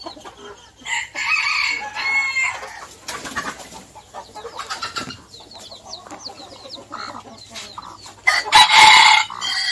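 Ayam kampung (Indonesian village chickens): two loud, drawn-out calls, one about a second in and one near the end, over faint, continual high peeping from chicks.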